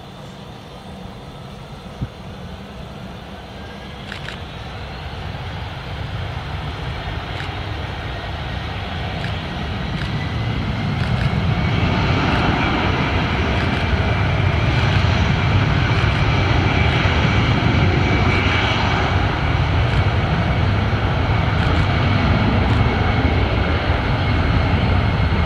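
Boeing 757's twin jet engines spooling up, a whine rising in pitch over the first ten seconds or so as the noise grows, then running loud and steady as the airliner accelerates down the runway on its takeoff roll.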